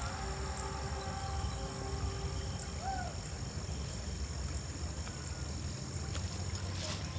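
Outdoor ambience: insects trilling steadily in high thin tones over a low rumble, with a couple of brief bird chirps about three seconds in.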